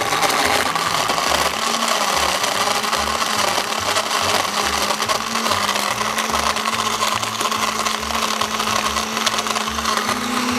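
Karaca countertop blender running steadily, crushing ice with coffee and milk into a snow-like slush. Its motor pitch rises slightly near the end.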